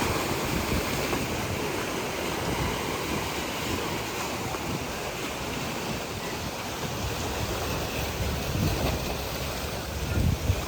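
Sea waves washing in, a steady rushing surf, with wind buffeting the microphone in low gusts that grow stronger near the end.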